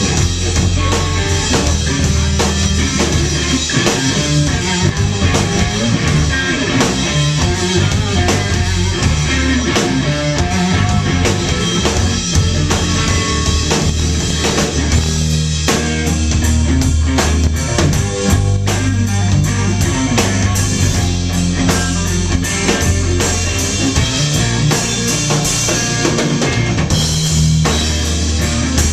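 Blues-rock band playing live: electric guitar, bass guitar and drum kit, with a steady drum beat under sustained low bass notes.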